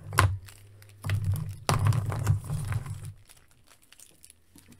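Handling noise from action figures and their packaging being moved about: a click, then a couple of seconds of knocks and light rustling, over a steady low hum.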